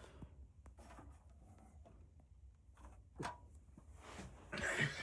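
Faint low hum in a quiet room, with a few small clicks and light handling noises and a short rustle about three seconds in.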